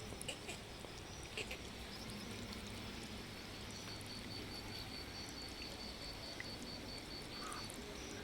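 Steady monsoon rain noise with an insect calling in even, high-pitched pulses, about four a second, that stop about a second before the end.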